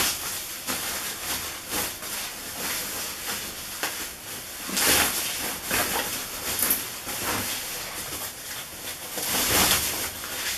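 Thin white plastic wrapping rustling and crinkling as it is pulled and crumpled off an electric guitar by hand, with louder bursts of rustling about five seconds in and again near the end.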